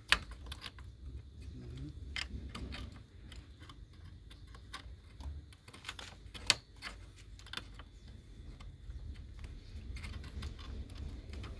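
Scattered light clicks and taps of small parts being handled while a RAM module is fitted into a copier, with a sharp click just after the start and another about six and a half seconds in, over a low steady hum.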